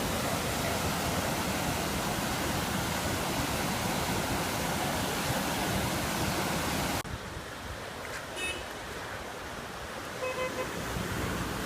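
Fast, swollen floodwater of an overflowing city stream, a steady loud rush. About seven seconds in it cuts off abruptly to a quieter background, where a few short beeping tones sound near the end.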